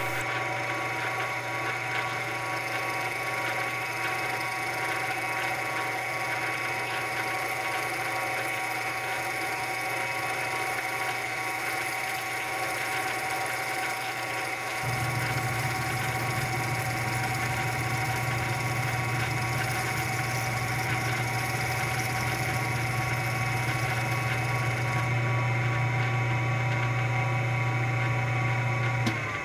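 Metal lathe running with a 5/8-inch twist drill cutting into a spinning aluminium billet, a steady machine whine with several held tones. About halfway a deeper hum joins and grows slightly louder, then drops away near the end.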